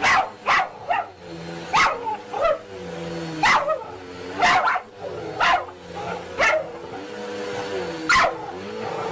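A dog barking about ten times in short barks as it snaps at a running vacuum cleaner, over the vacuum's steady motor hum, whose pitch wavers.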